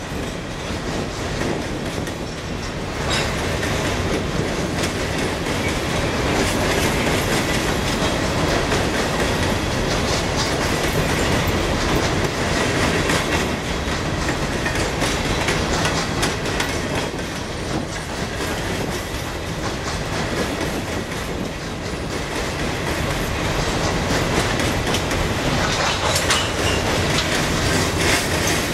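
Cars of a CSX coal train rolling past, wheels clacking steadily over the rail joints, with a faint steady squeal from the wheels.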